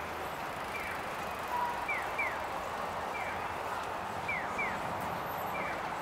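Japanese pedestrian-crossing audible signal playing its electronic chick-chirp ("piyo") tone over steady street noise. Short falling chirps come about every 1.2 s, a pair from one side answered by a single from the other, sounding while the walk light is green.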